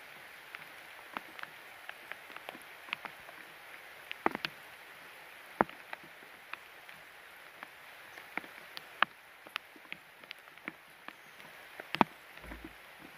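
Steady hiss of heavy rain, with irregular sharp taps of raindrops striking close by, a few of them much louder than the rest.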